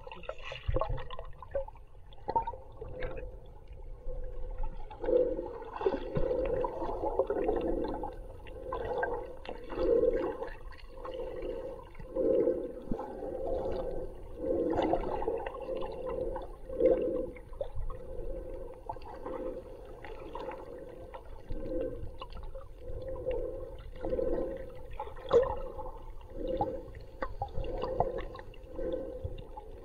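Muffled sloshing and gurgling of water heard underwater through the camera's housing, swelling in surges every second or two as the snorkelers swim.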